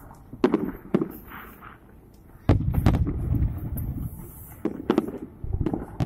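Aerial firework shells bursting in a run of sharp booms, the heaviest about two and a half seconds in, trailing into a rolling low rumble before a further cluster of bangs near the end.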